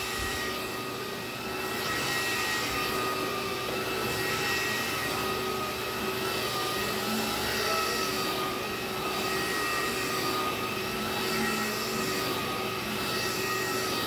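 Black & Decker 20-volt cordless stick vacuum running on its carpet setting, its motor giving a steady whine while the powered brush head is pushed back and forth over carpet; the hiss swells and fades every second or two with the strokes.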